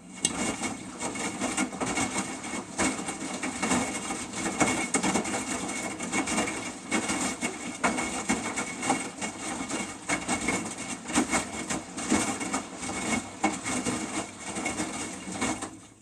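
Samsung washing machine's drum turning with its wet load, an uneven running noise full of small knocks and clatters that starts suddenly and stops suddenly near the end.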